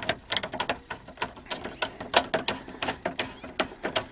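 Hand screwdriver turning a screw into the plastic dash trim: a run of quick, irregular clicks and ticks, several a second.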